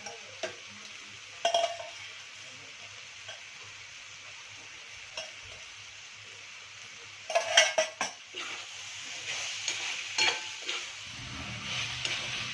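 Pasta and tomato-vegetable masala sizzling gently in a metal pan, with a metal spoon clattering and scraping against the pan as it is stirred, the loudest clatters about seven seconds in.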